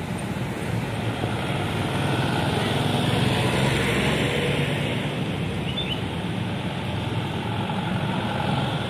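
Road traffic passing close by: a mix of car, truck and minibus engines with tyre noise on the road, swelling about three to four seconds in as vehicles go past.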